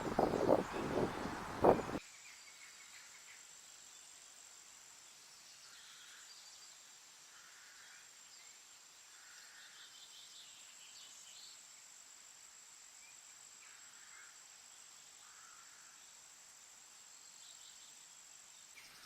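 A loud rustling, crackling noise for the first two seconds cuts off abruptly to quiet rainforest ambience. In the ambience a steady, high-pitched insect drone runs under faint, scattered bird chirps.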